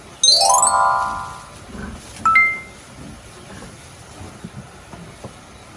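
A chime sound effect: a quick rising glockenspiel-like run with a ringing chord underneath, then a single bright ding about two seconds in that rings away.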